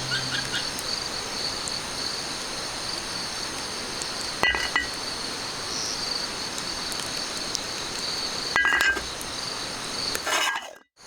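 A steady, high-pitched chorus of summer insects. Two short, sharp, louder sounds cut in, about four and a half seconds in and again near nine seconds, and near the end a brief rush of noise stops abruptly.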